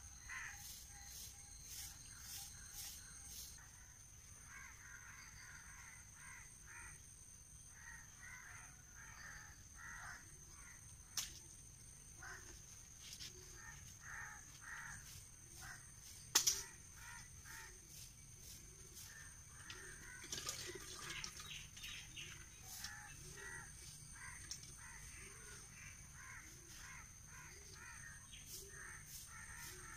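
Birds calling over and over, short harsh calls about once a second, over a steady high-pitched whine. Two sharp clicks stand out, about eleven seconds in and again about five seconds later.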